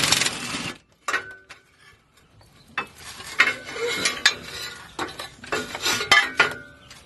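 Tools and metal hardware clinking and clattering during work on a driveshaft safety loop, with two short mechanical whirs, about a second in and again near the end.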